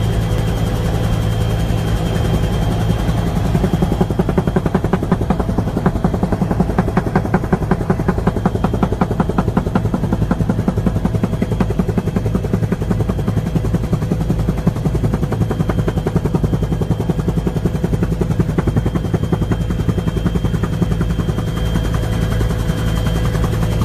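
Helicopter engine and rotor noise heard from inside the cabin: a steady, loud low drone with a rapid beating of the rotor blades that is strongest through the middle.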